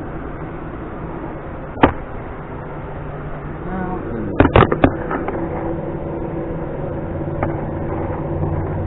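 Sharp metallic clicks and clanks of engine parts and tools being handled during engine disassembly: a single click about two seconds in, then a quick cluster of clanks past the middle, over a steady low mechanical hum.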